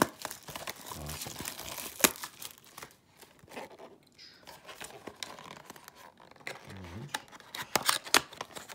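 Cardboard and plastic packaging of a Yu-Gi-Oh special edition box being torn open and handled, with tearing, crinkling and sharp clicks. The loudest tears come at the very start, about two seconds in, and in a quick cluster near the end.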